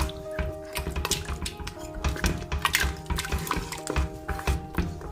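A spoon stirring a thin rice and coconut-milk porridge in a pot, knocking and scraping against the pot over and over, with background music.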